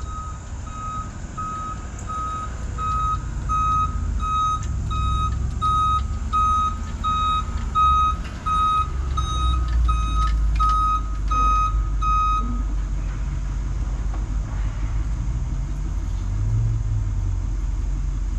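Mason dump truck reversing: its backup alarm beeps steadily at one pitch, about one and a half beeps a second, over the engine's low running, then stops about twelve seconds in while the engine keeps running.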